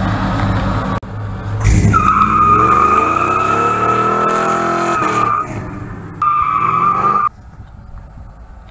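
Classic pickup truck's rear tyres squealing under hard acceleration for about three and a half seconds while the engine revs up beneath them, then a second, shorter squeal about six seconds in, after which only quieter road noise remains.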